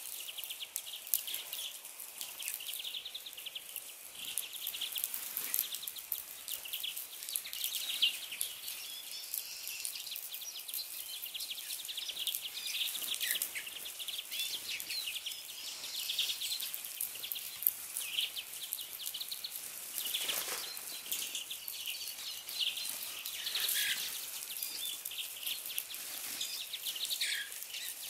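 A flock of small songbirds at a feeder chirping and twittering continuously, high and busy, with many small clicks and ticks mixed in.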